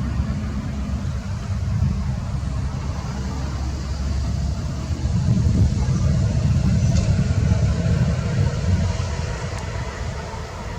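Traffic on a major arterial road: a dense, low rumble of passing vehicles that swells about five seconds in and eases toward the end.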